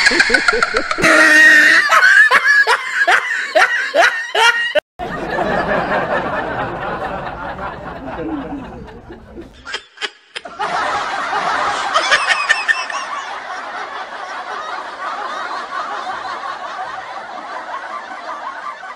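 Men laughing heartily together, loudest in the first few seconds with quick repeated 'ha-ha' bursts. The sound breaks off abruptly about five and ten seconds in, then the laughter and chatter go on more softly.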